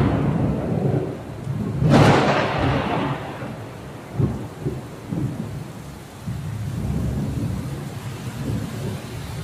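Thunder over steady rain: a loud clap rumbling away, then a second sharp crack about two seconds in that rolls off over the next second or so, followed by softer low rumbles.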